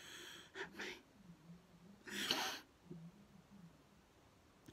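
A man's audible breaths between sentences: two short breaths in the first second and a longer, louder breath or sniff just after two seconds in.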